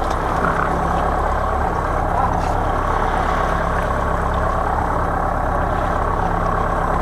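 Fishing boat's engine running with a steady low drone, under an even rush of wind and sea.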